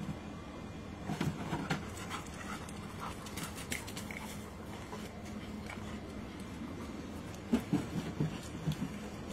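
A Doberman panting, with scattered clicks and taps in the first few seconds and a cluster of low thumps near the end as it steps back up onto hollow plastic training platforms.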